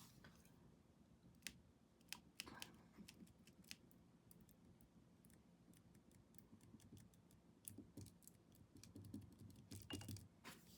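Near silence with faint, irregular clicks and taps from painting tools being handled: a brush working on the canvas and against the palette.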